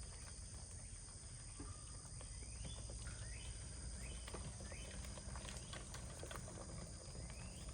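Faint outdoor ambience: short rising chirps repeating roughly once a second, most likely a bird, over a steady high insect drone.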